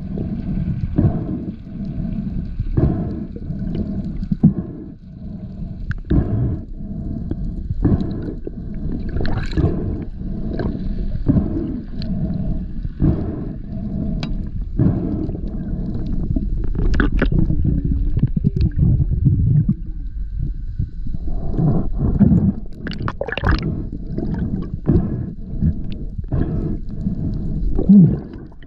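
Water sound heard through an underwater camera: a steady low rumble with irregular knocks and clicks about once a second, coming thicker near the end.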